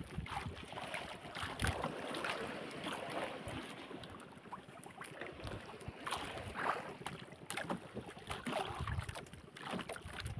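Water sloshing against the hull of a small fishing boat at sea, in uneven swishes, with wind on the microphone and a few light knocks.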